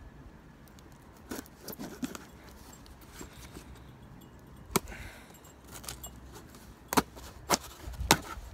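A knife slicing through packing tape and cardboard on a shipping box. Its scraping comes with scattered light clicks, and four sharp clicks in the second half.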